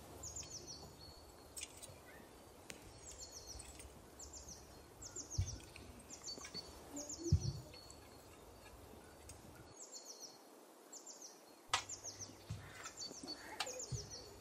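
A small bird chirping over and over, short runs of three or four high falling notes about once a second, against faint outdoor background noise. A few sharp knocks from handling the roast chicken on the plate, the loudest about midway and again near the end.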